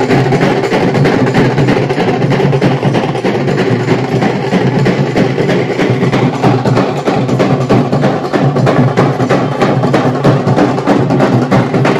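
Troupe of Maharashtrian dhol barrel drums playing a continuous, loud, fast rhythm of dense strokes.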